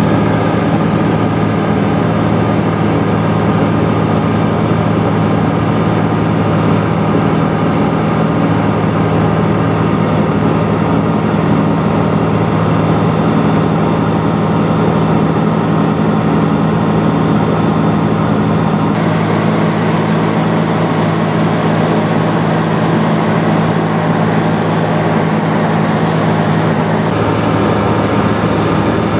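Pioneer 200 light aircraft's piston engine and propeller droning steadily in cruise flight, heard inside the cabin. The tone shifts slightly about two-thirds of the way through and again near the end.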